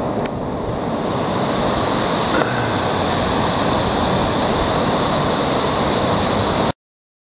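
River water rushing over a rocky riffle: a steady, loud rushing noise that stops abruptly near the end.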